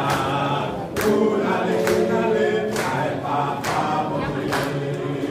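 A church choir group singing a gospel song together, with a sharp beat keeping time about once a second.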